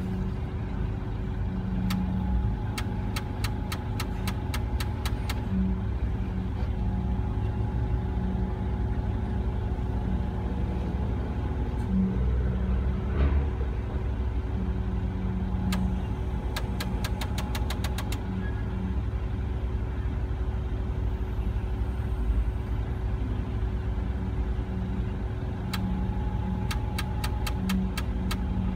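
A crane's diesel engine running steadily. Three times, a quick run of clicks with a faint whine sounds over it.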